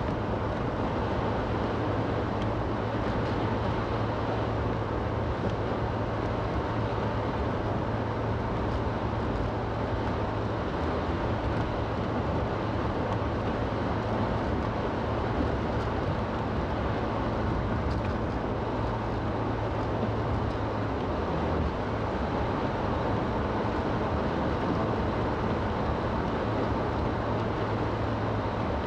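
Inside a small four-wheel-drive car driving through about an inch and a half of slush: a steady low engine hum under a constant wash of tyre and road noise. The engine note shifts a little about ten seconds and again about twenty-one seconds in.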